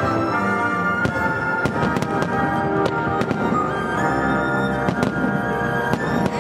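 Aerial fireworks shells bursting, sharp bangs and crackles at irregular intervals, about one every second or so, over music that plays throughout.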